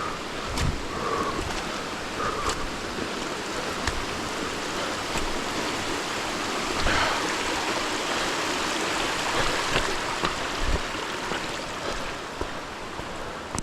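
Rushing stream water making a steady, full hiss, with a few faint knocks scattered through it.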